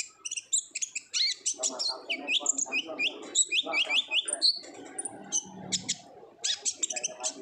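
Kolibri ninja sunbird singing a fast, chattering song of short high chirps and quick sweeping notes, in the energetic 'gacor ngobra' style used to coax other birds into song. A lower, busier layer of sound runs underneath for most of it.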